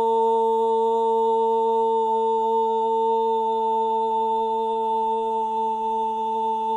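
A man's voice holding one long, steady note, a soccer-commentator-style drawn-out "Goooool" goal call.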